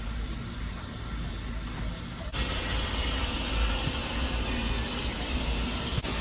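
Steady hiss and low rumble from a standing K-36 2-8-2 narrow-gauge steam locomotive, No. 480, idling under steam. The hiss gets louder and brighter about two seconds in, as the sound comes from close beside the running gear.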